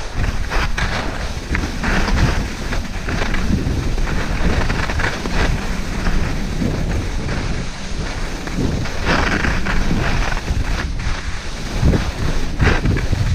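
Wind buffeting an action camera's microphone during a fast ski descent, a heavy rumble, mixed with the hiss and scrape of skis on groomed snow that swells and fades every few seconds.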